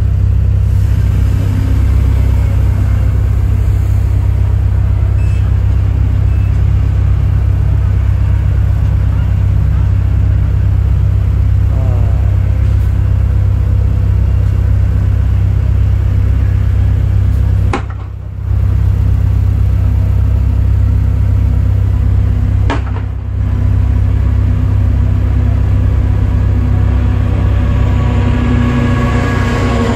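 Steady, loud, low rumble of running machinery, briefly dipping twice about two-thirds of the way through, with a faint whine rising and falling near the end.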